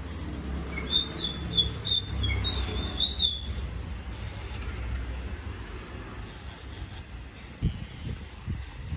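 Electric nail drill with a sanding band running at a steady low hum while filing an acrylic powder nail, with a run of short high chirps from about one to three and a half seconds in. Near the end, short scraping strokes begin as the band is worked against the nail.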